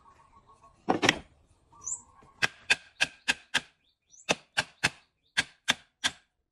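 Claw hammer striking the top rail of a wooden cabinet frame: eleven sharp blows in three quick runs of five, three and three, about three a second, after one heavier knock about a second in. Faint bird chirps sound between the blows.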